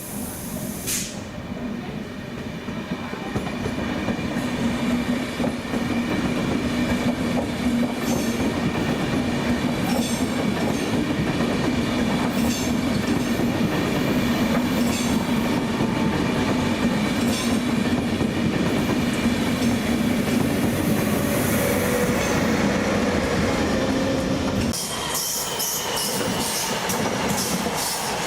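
A train rolling slowly over station tracks and points: a steady rumble with repeated sharp clicks of wheels over rail joints and a high metallic wheel squeal, the squeal sharper near the end.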